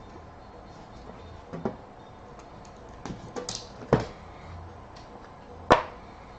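Trading card hobby box and its packaging being handled and opened, giving a few separate sharp clicks and knocks. The loudest come about four seconds in and near the end.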